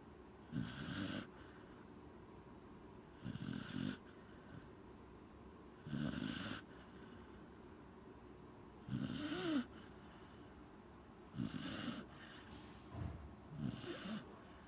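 Corgi snoring in short, regular snores about every two and a half to three seconds, six in all. One about nine seconds in carries a whistling rise and fall in pitch.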